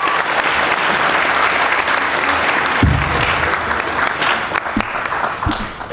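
Audience applauding, dying away near the end, with a few low thumps about halfway through and again later.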